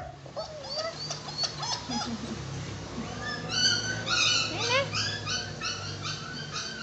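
A dog whining and whimpering in short high cries, a few at first and then coming quickly, about three a second, from about halfway through, over a steady low hum.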